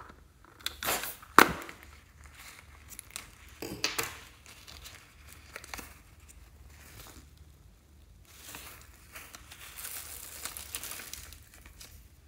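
Scissors snip into a rubber balloon filled with small beads, with a sharp click about a second and a half in. Then come scattered clicks and soft crinkling and crackling as the rubber is pulled open and the small gold beads spill out onto the slime.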